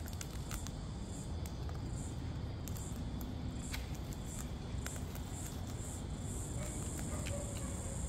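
Sulphur-crested cockatoos feeding, their beaks giving scattered short, sharp clicks and taps against the seed tray and the plastic bucket. Behind them is a steady low outdoor rumble and a faint, high, pulsing buzz.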